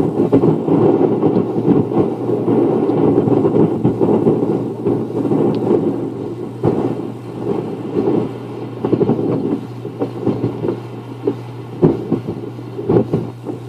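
Gusty hurricane wind buffeting the camcorder's microphone in rumbling surges that ease about halfway through, over a steady low hum.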